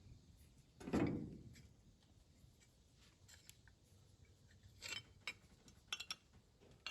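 Quiet handling noise: a soft thump about a second in, then a few faint clicks and taps of small metal parts near the end.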